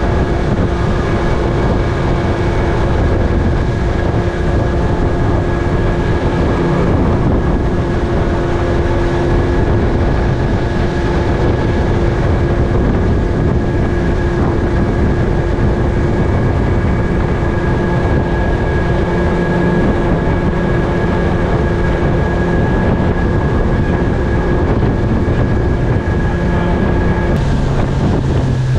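A boat motor running steadily under way, with rushing wind and water noise, and a steady engine note that shifts slightly near the end.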